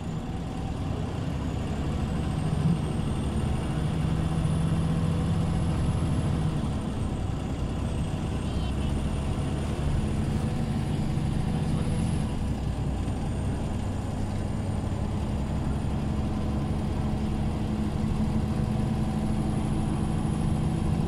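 Scania OmniLink CL94UA city bus running: a steady low engine drone, with a faint high whine that rises and falls a few times.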